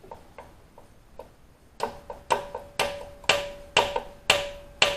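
Sharp, evenly spaced clicks, about two a second, starting about two seconds in after a few fainter ticks, over a faint steady tone.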